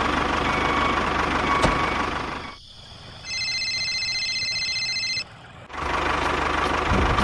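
Tractor engine running with a low rumble, cutting off about two and a half seconds in. Next comes a mobile phone's electronic ringtone, a pulsing pattern of high steady tones lasting about two seconds. Near the end the engine starts running again.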